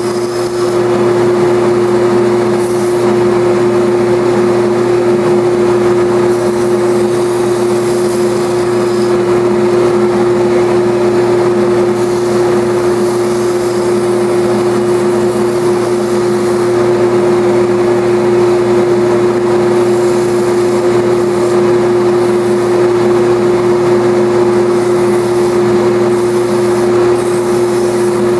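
JET belt and disc sander running with a steady, loud hum while a balsa wood dragster body is sanded on its belt.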